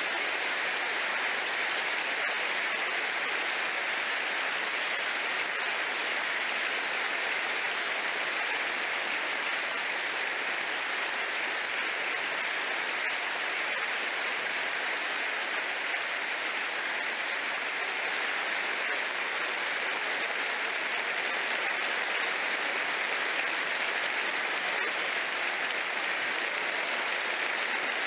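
Large crowd giving a standing ovation: dense, steady applause.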